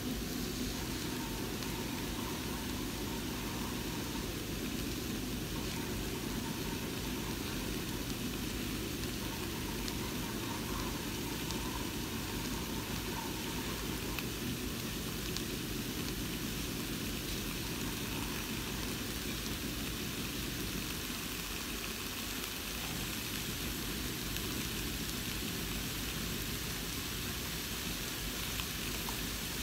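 Steady low hiss with a faint hum: salmon and vegetables beginning to sizzle in a Saladmaster stainless-steel pot.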